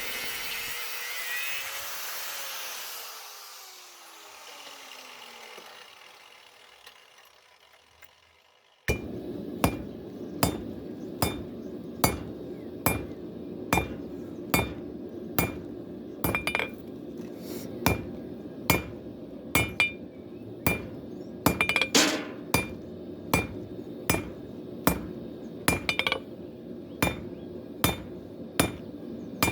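Hand hammer striking hot W2 steel on an anvil in a steady rhythm, about three blows every two seconds, each with a bright ring. The hammering begins suddenly about nine seconds in, after a whirring noise that winds down and fades out.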